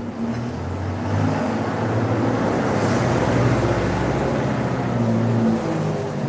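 A motor vehicle's engine running close by, a low rumble that swells about a second in and eases off near the end.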